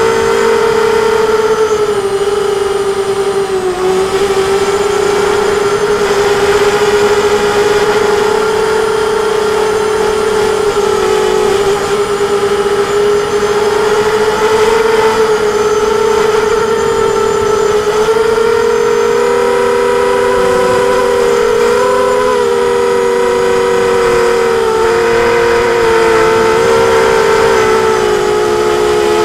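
ImmersionRC Vortex quadcopter's four motors and propellers whining steadily in flight, a cluster of close tones whose pitch wavers slightly up and down as the throttle shifts, drifting apart in the last third.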